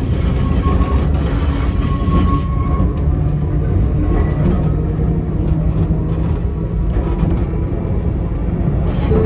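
Enoshima Electric Railway train running slowly, heard from the cab: a steady low rumble of wheels on rail and running gear as it gathers speed from about 15 to 20 km/h.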